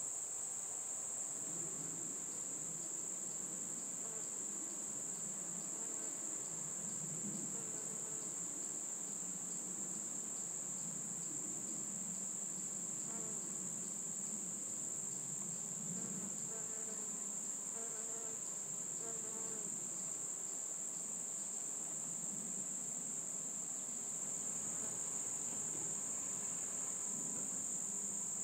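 A steady, unbroken, high-pitched trilling of late-summer singing insects, crickets or their kin. Underneath it, a low, uneven hum of bumblebee wings rises and falls as the bees work the flowers close by.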